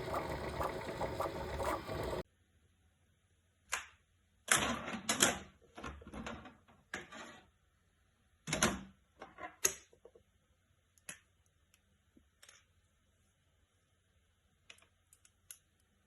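A dense, busy mechanical sound cuts off abruptly about two seconds in. It is followed by irregular clicks and short clatters of hard plastic being handled, loudest around the middle and sparser toward the end.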